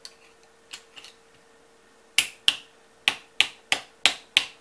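A few faint clicks, then seven sharp taps about three a second starting about halfway through: the side plate of a Smith & Wesson Model 620 revolver being tapped down into its tight fit on the frame.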